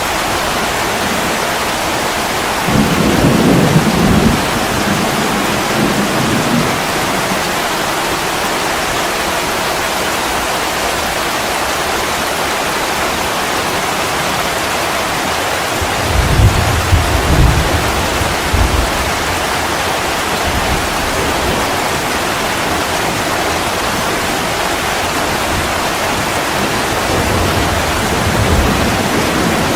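Steady rain hissing without a break, with low rolls of thunder rumbling through it: one about three seconds in, a louder, deeper one just past halfway, and a faint one near the end.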